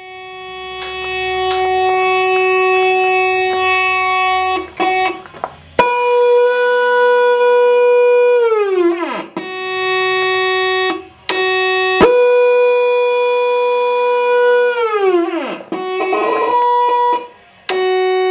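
Point Abino Lighthouse electronic fog horn unit sounding a loud, steady, buzzy tone, running again after new capacitors were fitted. Twice it jumps to a higher pitch with a sharp click and, a few seconds later, slides down in pitch before settling back to the lower tone.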